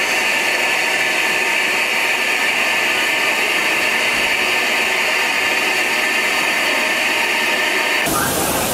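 Steam locomotive No. 926, a Southern Railway Schools class 4-4-0, blowing off steam through its safety valves while standing: a loud, steady hiss, the sign that the boiler is at full working pressure. The hiss breaks off near the end.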